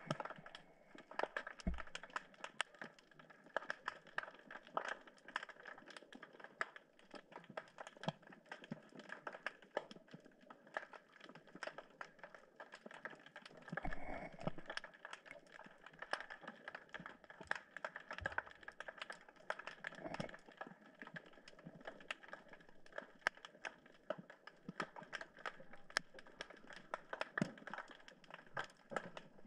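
Underwater crackle of many small, irregular clicks from snapping shrimp, with a few dull low thumps scattered through it.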